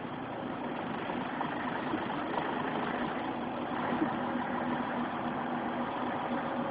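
Vehicle engine running steadily with a low hum, heard from inside the cab while driving over a rough, snowy dirt track, with a few small knocks and rattles.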